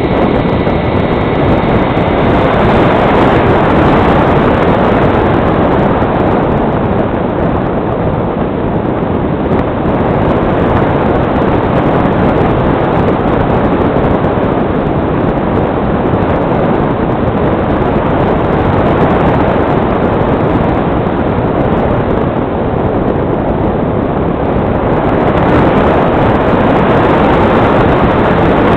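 Rushing airflow over the onboard camera of an electric RC powered glider, gliding with its motor off and its propeller folded; the noise swells and eases slowly. A thin high steady whine, typical of the electric motor winding down, fades out about two seconds in.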